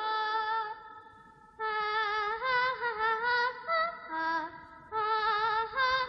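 A high, child-like voice singing a slow, wordless lullaby-like melody. A short phrase opens, then comes a brief pause, then longer phrases with small rising and falling steps.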